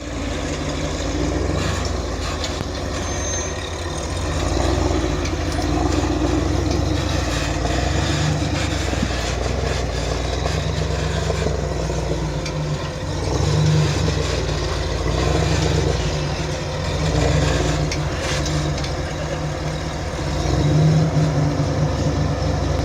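A vehicle engine running as it drives along a dirt trail, its revs rising and falling several times, with road and wind noise over the top.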